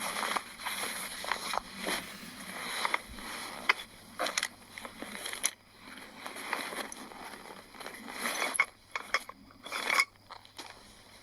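Rustling and scraping of a vintage canvas tent and its gear being handled during setup, with scattered clicks and knocks.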